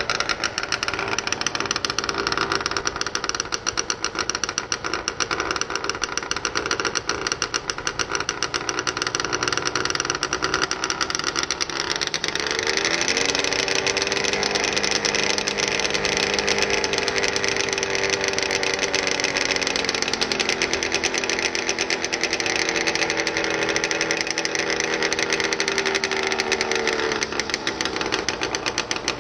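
Quad's engine running through its aftermarket FMF exhaust. It idles, is brought up in revs about twelve seconds in, is held steady for a stationary decibel test, then drops back to idle near the end. The quad is too loud for the 94 dB state limit.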